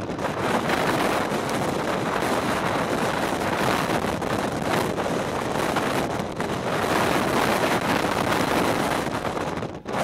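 Strong wind gusting against the microphone, a steady rushing noise that swells and eases.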